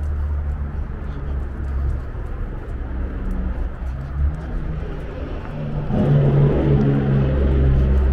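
Engine noise from a passing motor vehicle or aircraft: a steady low drone that swells louder about six seconds in.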